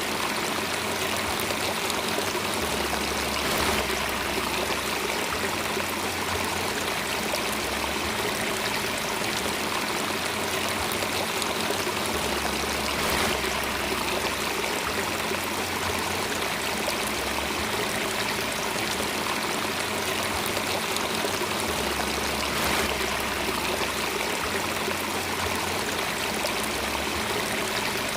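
Stream running, a steady rush of flowing water with slight swells about every nine and a half seconds.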